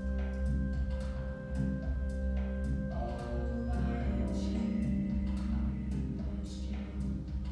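Background music: held chords over a steady beat of about two strokes a second.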